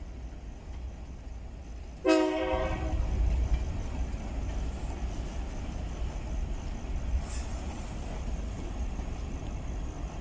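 Freight train of covered hopper cars rolling past with a steady low rumble; about two seconds in, a single horn blast lasting about a second sounds over it, the loudest thing heard.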